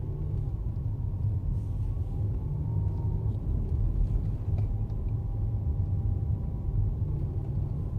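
Cabin sound of a 2015 Mercedes-Benz S600 driving: steady low road and engine noise with a thin high whine above it, wavering slightly in pitch. Other S600s don't make this whine; Mercedes-Benz puts it down to minute manufacturing and assembly tolerances.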